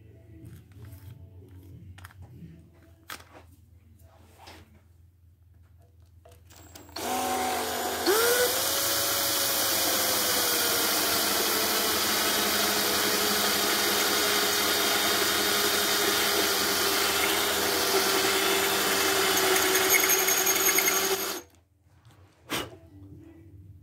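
Cordless drill with a 3/16-inch bit boring into the metal deck between the cylinder bores of a two-cylinder air compressor pump. About seven seconds in the motor starts with a rising whine as it comes up to speed, then runs steadily for about fourteen seconds and stops; light handling ticks come before it and a single click after.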